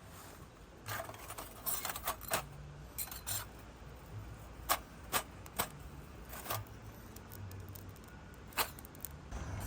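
Irregular light clicks and knocks, a dozen or so, over a low background hum, with the loudest three close together about halfway through and another near the end.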